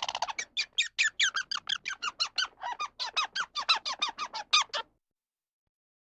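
An animal giving a quick run of short, high, squeaky calls, each sliding down in pitch, about five a second; the calls stop about five seconds in.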